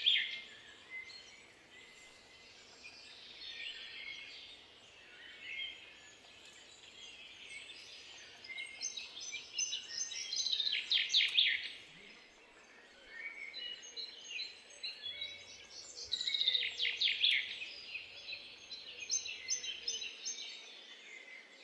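Garden birds singing, with bursts of rapid high trills and chirps every few seconds over faint outdoor background noise.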